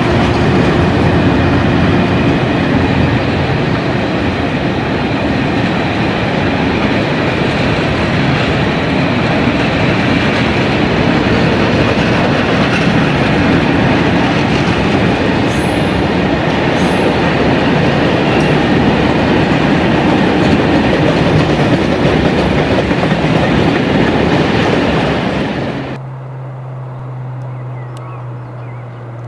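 Loaded hopper wagons of a freight train rolling past close by: a continuous heavy rumble and clatter of steel wheels on the rails. About 26 seconds in it cuts suddenly to a much quieter, low steady drone from a distant Class 66 diesel locomotive's two-stroke V12 engine.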